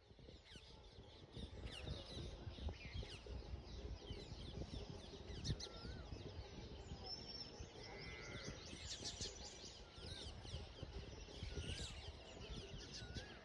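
Many birds chirping and calling together over a low steady rumble, fading in over the first two seconds. One bird repeats a short wavering whistle four times.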